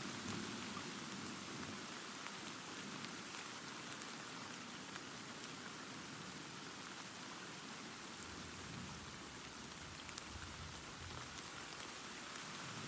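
Steady rain falling, an even dense hiss. A low thunder rumble fades out at the start and a fainter one swells briefly about two-thirds of the way in.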